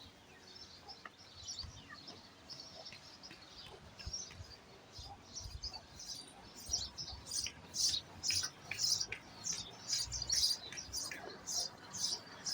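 Small birds chirping in quick, high, short notes. The chirping grows busier and louder from about halfway through.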